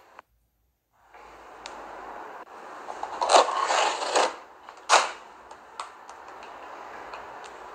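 Scraping and crinkling as an aluminium foil takeaway tray is handled with a plastic knife. A sharp click comes about five seconds in, over a steady hiss.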